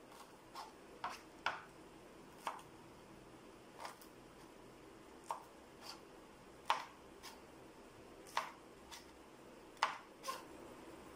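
Kitchen knife chopping green beans on a plastic cutting board: sharp knife strikes at an uneven pace, about one or two a second.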